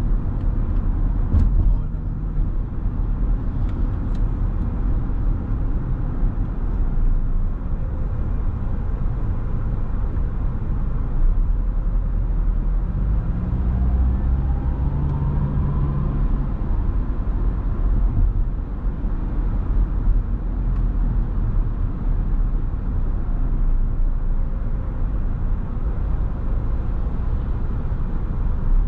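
Steady low rumble of a car driving, heard from inside the cabin: tyre and engine noise. A faint rising whine about halfway through.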